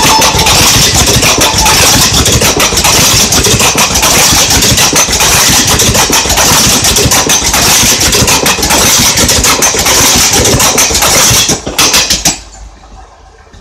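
Express passenger train passing at speed, its wheels clattering rhythmically over the rail joints under a loud rush of noise. The sound drops away sharply about twelve seconds in as the train clears.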